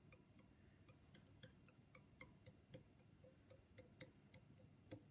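Near silence with faint, irregular light clicks and ticks, a few a second, from a twist-up dubbing wax tube being handled and worked against the tying thread.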